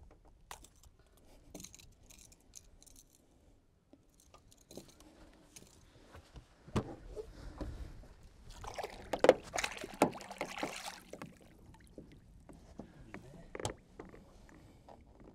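Water sloshing and splashing as a barramundi is held by the jaw in the water at the side of a boat for release, with scattered light knocks from handling on the boat. The splashing is loudest about nine to eleven seconds in.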